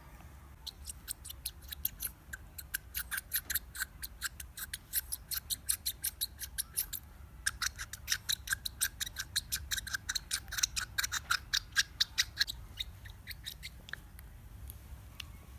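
A baby's teether squeaking in rapid short squeaks, several a second, as the baby chews on it to scratch its gums; the squeaks pause briefly about halfway and trail off near the end.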